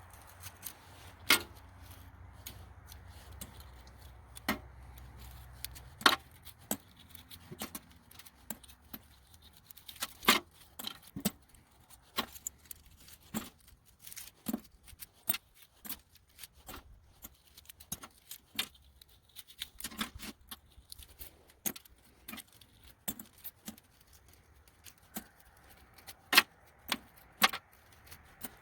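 Small steel nails and tacks clinking and jangling against each other and against a strong magnet, in many sharp, irregular clicks.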